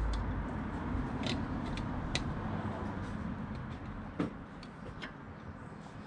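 Scattered light metallic clicks and taps from a Mini Cooper front brake caliper and hand tools being handled, with the caliper bolts just undone. The sharpest clicks come about one, two and four seconds in, over a low rumble that fades away.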